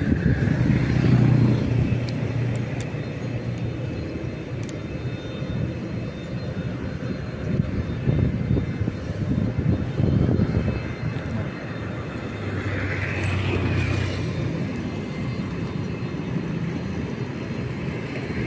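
Steady low rumble of road traffic, swelling briefly a little over two-thirds of the way through.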